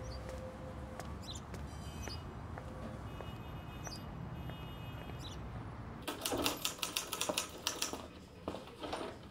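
Faint outdoor ambience with a few bird chirps and light heel steps, then, about six seconds in, a manual typewriter clacking quickly, its keys struck several times a second.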